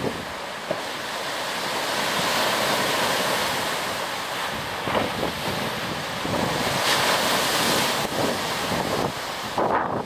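Choppy lake waves breaking and washing up a sandy beach in strong gusty wind, with wind buffeting the microphone. The surf noise swells and eases in surges, and a rougher gust hits near the end.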